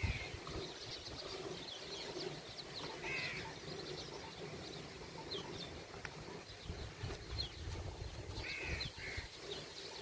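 Small birds chirping and calling repeatedly, over the soft swishing of milk streams squirting into a steel pail as a cow is hand-milked.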